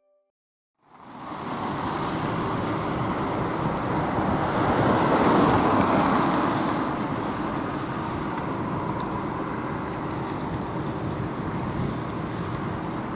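Airbus A319-111 airliner on final approach, its CFM56 turbofan engines giving a steady broad rumble with a hiss above it. It starts about a second in and grows somewhat louder around the middle.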